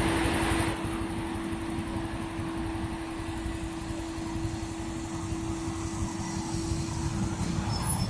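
Steady hum inside a CRRC Hengtong CKZ6105BEV05 electric city bus, with one constant tone held over a low rumble.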